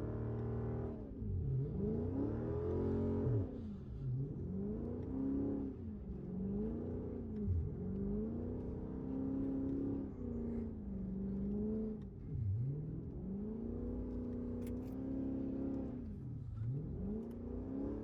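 Dodge Charger Scat Pack's 392 V8 revving up and down over and over, its pitch rising and falling about every two seconds, as the car is spun through donuts on snow on bald summer tires.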